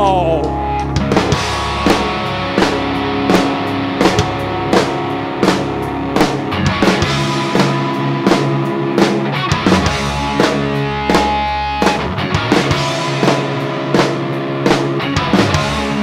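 Live rock band playing: electric guitars and bass guitar over a drum kit keeping a steady beat.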